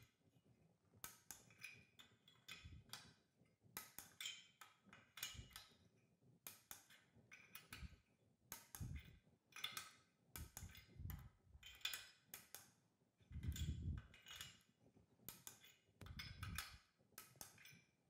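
Faint ratcheting of a torque wrench on the cylinder-head nuts: short bursts of clicks about once a second as the wrench is swung back and forth, with light knocks of the tool against the head, tightening the nuts towards 16 newton-metres.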